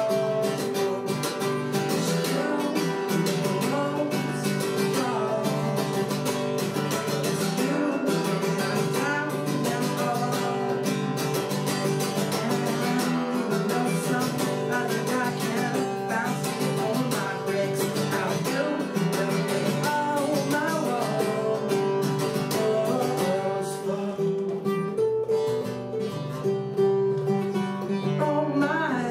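Acoustic guitar strummed steadily, with a man singing over it at times.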